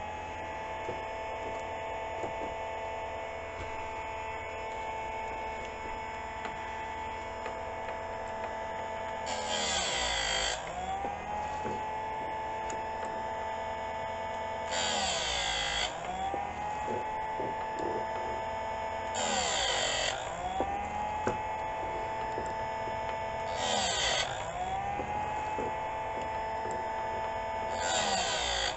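Electric tabletop chainsaw chain sharpener's motor whining steadily with its grinding wheel spinning. Five times, roughly every four to five seconds, the wheel grinds a chain tooth for about a second: a rasping hiss while the motor's pitch sags under the load and then recovers.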